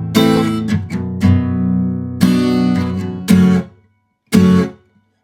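Acoustic guitar strumming the song's intro chords, with the bass notes coming through. About three and a half seconds in the chords stop dead twice, with a short stab between: pauses made by relaxing the fretting fingers on the barre chords so the strings are muted.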